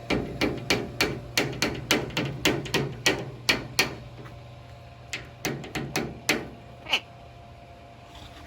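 African grey parrot knocking its beak against a tabletop in quick repeated raps, about three a second for around four seconds, then after a short pause another half-dozen raps and a last single one.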